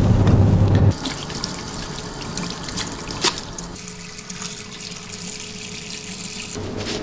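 A low car-cabin rumble that cuts off about a second in, then a tap running into a sink while hands scoop water up to the face, with a sharp splash about three seconds in.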